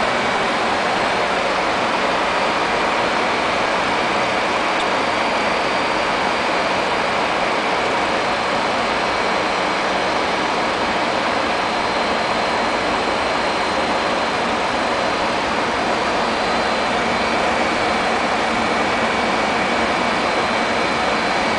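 Fokker 100 jetliner cockpit noise in flight: a steady, even rush of air and machinery with a thin high whine held over it.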